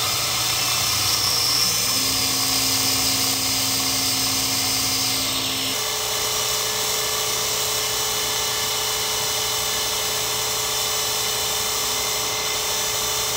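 Miniature Sherline CNC cam grinder running, its small grinding wheel spinning steadily against a camshaft with a high hiss. A lower steady tone joins about two seconds in and stops about six seconds in.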